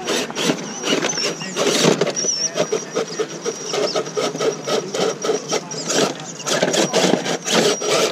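Electric scale RC crawler truck working hard up rock: a rapid, irregular scrabbling and clattering of tires and chassis against stone, with a thin high whine from the drivetrain running through it.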